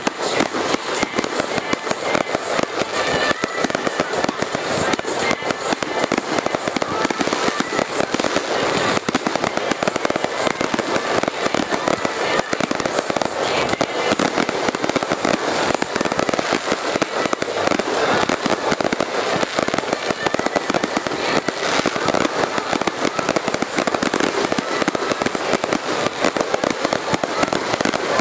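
Aerial fireworks display going off in a dense, continuous barrage of bangs and crackles, with many shells bursting at once.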